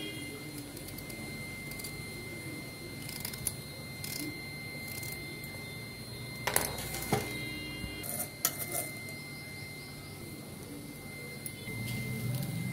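A few light clinks and taps of ingredients dropped by hand into a stainless steel mixer-grinder jar, clustered about halfway through, over a steady thin high-pitched whine.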